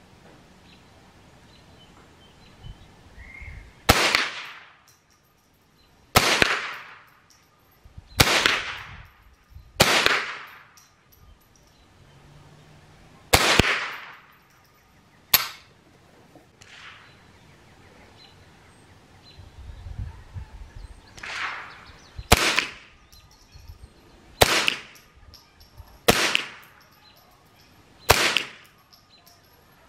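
Ruger 10/22 semi-automatic .22 LR rifle firing a string of about ten shots, one roughly every two seconds, each sharp crack trailing off in a short echo. A couple of fainter reports fall in between.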